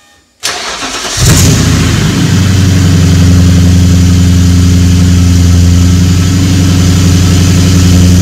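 Car engine in a BMW E30 cranking briefly, catching about a second in with a short rise in revs, then settling into a steady idle, run so the A/C compressor can be charged.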